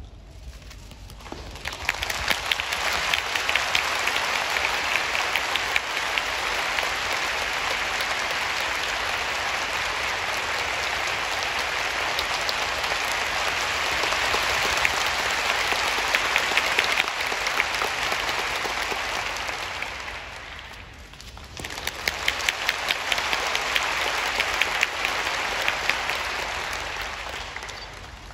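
Large arena audience applauding, a dense patter of many hands that swells about two seconds in, fades into a brief lull around three-quarters of the way through, then picks up again.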